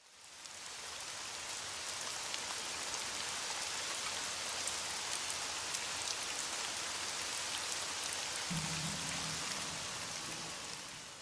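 Steady hiss of rain, as from a rain ambience track, fading in at the start and out near the end. Faint low tones join it about three quarters of the way through.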